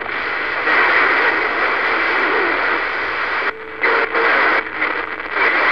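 Strong hiss and static from a CB radio receiving a skip signal, with the signal dropping out briefly a few times in the second half.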